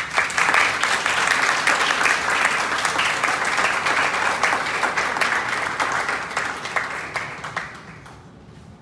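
An audience applauding, dense clapping that starts all at once, holds steady for about seven seconds, then dies away near the end.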